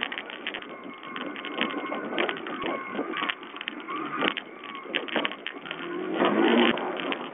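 A 125 cc four-stroke enduro motorcycle riding over a rough dirt trail: the engine's pitch rises and falls, with constant rattling and knocking from the bike and trail. It is heard through a low-quality watch-camera microphone. The sound swells to its loudest about six seconds in.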